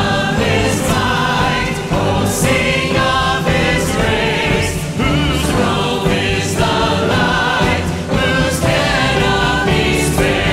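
Church choir singing a hymn in unison phrases, with instrumental accompaniment under it.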